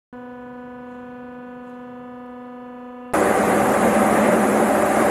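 A steady, even-pitched hum, then about three seconds in an abrupt switch to loud, steady industrial machinery noise from a processing plant's belt conveyor line.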